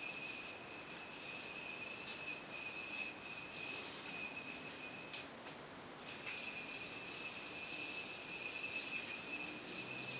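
Steady high-pitched insect trill, cricket-like, over a constant hiss. About five seconds in there is a short higher beep, and then the trill drops out for under a second before it resumes.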